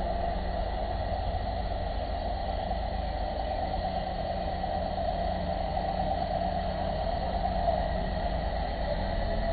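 Steady low rumble and hiss of vehicle engines on the street, picked up by a street webcam's microphone.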